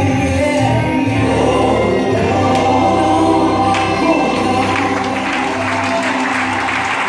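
Gospel song with singing. A few seconds in, the congregation starts applauding over the music.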